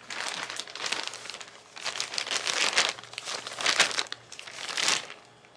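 Plastic poly mailer bag crinkling as it is handled and held up, in a few crackly bouts that stop near the end.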